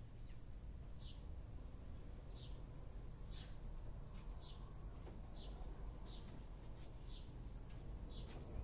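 A bird repeating a short, high chirp about once a second, each chirp falling slightly in pitch, over a steady low outdoor rumble.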